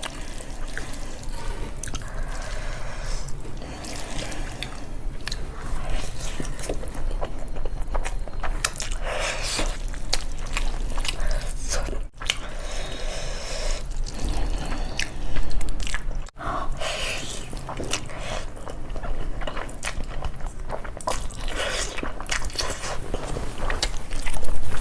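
Close-miked eating sounds of spicy instant noodles: wet slurping, smacking and chewing in quick, irregular succession, with a couple of brief breaks.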